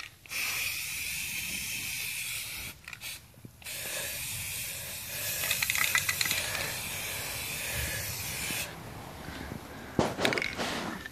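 Aerosol spray-paint can hissing in two sprays: one of about two and a half seconds, then a longer one of about five seconds that stops about nine seconds in.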